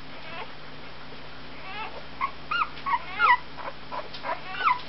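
A one-week-old Berger Picard puppy whimpering: a string of short, high squeals, each rising and falling in pitch, starting about a second and a half in.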